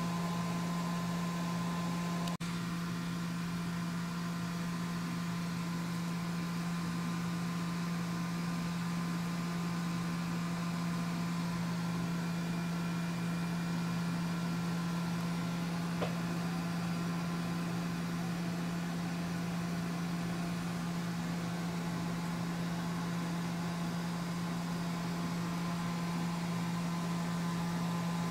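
Steady low machine hum with a fainter even hiss and a few thin steady tones above it, unchanging throughout. A sharp tick with a brief break comes a couple of seconds in, and a faint tick about halfway through.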